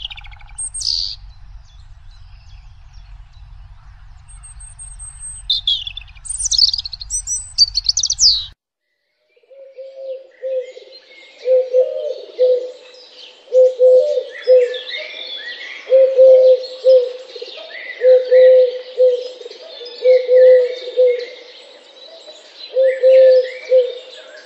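Recorded woodland birdsong: bright, high chirping song phrases from small birds, then after a short break a chorus of many twittering birds under a low two-note call repeated about every two seconds.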